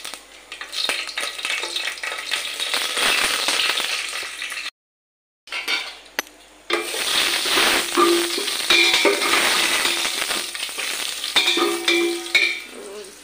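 Whole spices and bay leaves sizzling in hot oil in a steel pot, stirred with a metal spatula that scrapes and clinks against the pot. The sound cuts out briefly about five seconds in.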